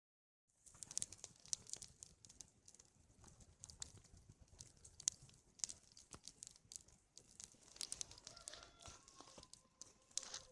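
Bonfire of cut branches crackling, with many irregular sharp snaps and pops.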